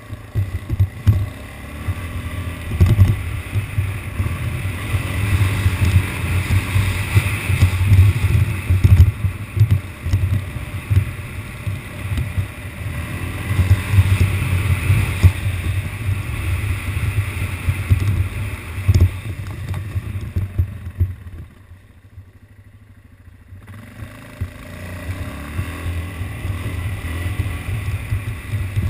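ATV engine running under way, its note rising and falling with the throttle, with rough wind rumble on the mounted camera's microphone. It eases off and goes much quieter for about two seconds roughly three-quarters of the way in, then picks up again.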